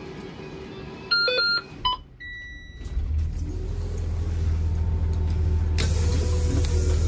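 School bus dashboard warning beeps at key-on, then the bus's diesel engine starts about three seconds in and settles into a steady idle. A steady hiss joins the idle near the end.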